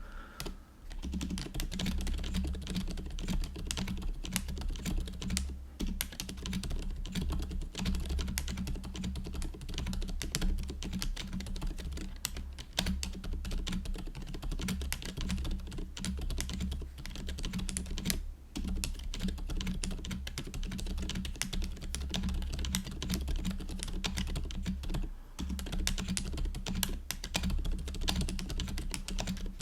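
Continuous fast typing on a GoPolar TKL mechanical keyboard fitted with pre-lubed Silent Cream Yellow Pro silent tactile switches and lubed, balanced stabilizers: a steady patter of dampened keystrokes, with brief pauses a few times. The silent switches make the typing quiet overall.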